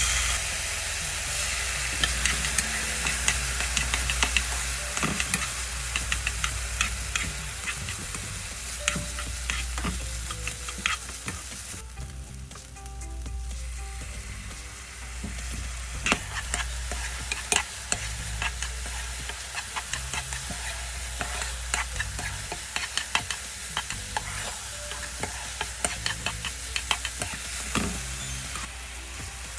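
Food sizzling as it is stir-fried in a frying pan, with a utensil clicking and scraping against the pan throughout. The sizzle eases briefly about twelve seconds in, then picks up again.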